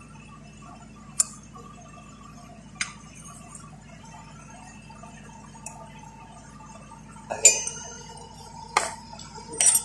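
Metal hand tools and bolts clinking while the alternator bracket is bolted onto an Isuzu 4HF1 engine. There are single sharp clinks about one and three seconds in, then a cluster of louder clanks in the last few seconds, over a faint steady hum.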